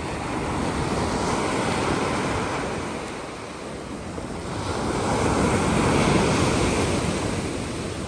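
Sea waves washing in on the shore, surging louder twice and easing between, with wind buffeting the microphone.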